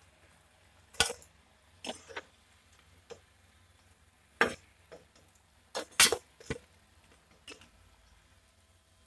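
Perforated steel skimmer knocking and clinking against a frying kadai while scooping fried momos out of the oil: about ten sharp, uneven clinks, the loudest about six seconds in.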